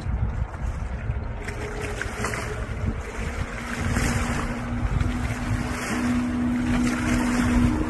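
Amphibious quadski's engine running at speed on the water: a steady drone that grows louder and rises slightly in pitch as the craft comes nearer. Wind rumbles on the microphone.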